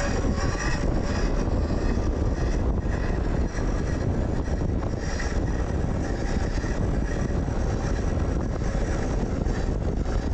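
Steady wind rush on the helmet-mounted microphone with the rumble of a Zero FX electric dirt bike rolling over an offroad trail.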